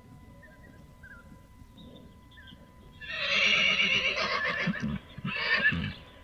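Horse neighing: after a few seconds of faint background, a loud, wavering whinny starts about three seconds in and lasts nearly two seconds, followed by a shorter second burst.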